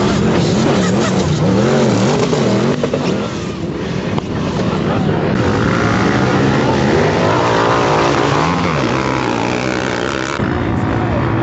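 Off-road vehicles (sand rails, trucks and ATVs) drag racing on sand, several engines revving hard at full throttle with pitch rising and falling as they accelerate and shift. The sound changes abruptly about ten seconds in.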